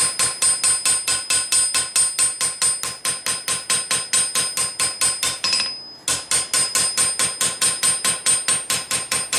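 Hand hammer striking a hot knife blade on a steel anvil in a fast, steady rhythm of about four blows a second, each blow ringing. The smith is forging the edge bevel. The blows stop briefly a little more than halfway through, then resume.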